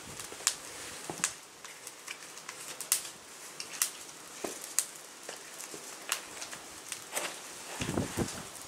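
Irregular sharp crackles and pops of a small tinder fire of cardboard, birch bark, dried grass and wood shavings as it is being lit, with a duller rustle near the end.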